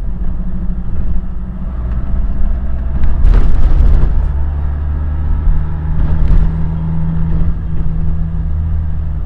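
Car driving on the road, a steady low drone of engine and road noise, with a brief louder burst of noise about three seconds in.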